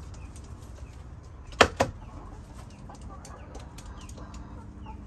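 Two sharp knocks close together about a second and a half in, with chickens clucking softly and small birds chirping faintly in the background.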